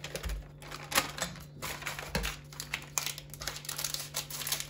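Paper wrapper of a cottage cheese packet crinkling and crackling as it is peeled off and squeezed out by hand, in rapid irregular crackles with a sharper snap about a second in.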